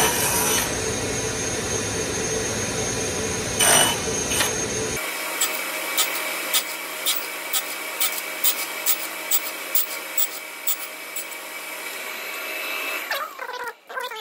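Table saw running, with its blade cutting through a board in repeated passes to clear the cheek of a half lap joint; louder cutting surges come at the start and about four seconds in. From about five seconds in, a string of sharp clicks comes roughly twice a second, and near the end the saw winds down.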